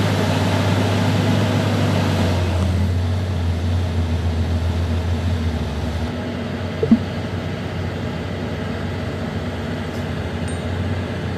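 ZAXIS 350H excavator's diesel engine running steadily, then settling to a lower, quieter level after a few seconds. A brief sharp sound comes about seven seconds in.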